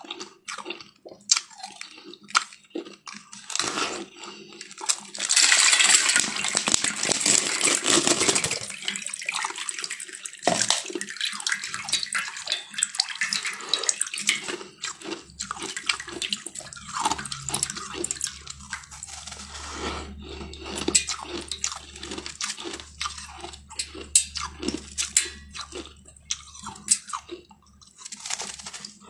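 Ice being bitten and crunched close to the mouth, with many sharp cracks and chewing crunches. A louder, denser stretch of crunching comes about five to eight seconds in.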